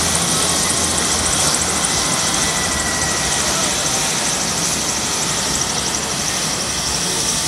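Westland Lynx helicopter running on the ground, its twin turboshaft engines giving a steady high whine with a fast, even pulsing from the turning rotor.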